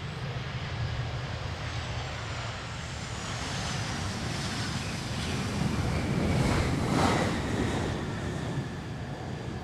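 Boeing 787-8 airliner's jet engines running as it moves past, with a rushing roar and a whine that slowly falls in pitch, loudest about seven seconds in. Low buffeting of wind on the microphone runs underneath.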